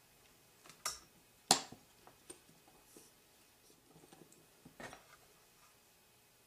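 A few light taps and clicks of small tools and parts being handled during soldering. A sharp tap about a second and a half in is the loudest, with a softer click just before it, a cluster of faint ticks, and another tap near the end.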